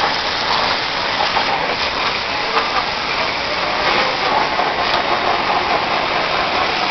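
Cleantec Quiky 10 100 high-pressure washer jet spraying steadily onto the steel bodywork of a backhoe loader: a continuous hiss of water striking metal.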